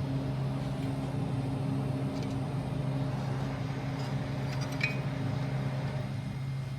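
Steady low electrical machine hum, with a few light metallic clinks from hand work on the cooler's compressor terminal housing.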